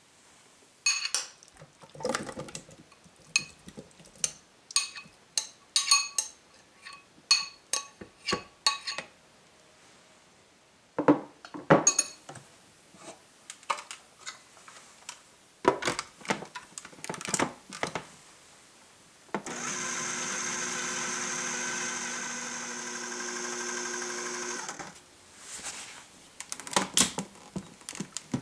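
Food processor motor running steadily for about five seconds, about two-thirds of the way in, pureeing chunks of mango. Before and after it come many sharp clicks and knocks of hard plastic as the bowl is loaded and handled.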